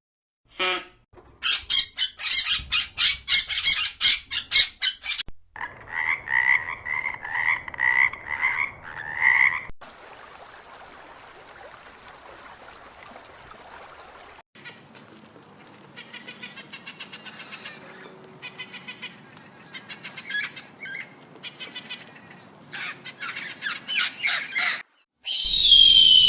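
Several animal calls in turn, each a quick repeated pulsing call. One call repeats about twice a second for a few seconds, and there is a quieter stretch of steady hiss in the middle.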